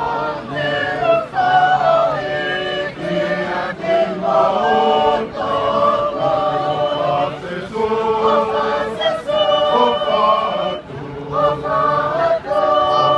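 A crowd of Tongan people singing together, several voices in harmony, held notes moving from one to the next every second or so.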